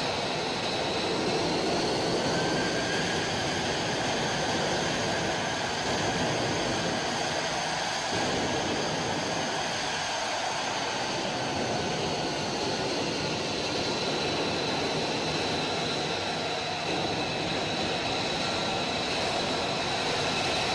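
Lockheed Martin F-35 Lightning II's Pratt & Whitney F135 turbofan running at low taxi power: a steady rushing roar with a high whine on top.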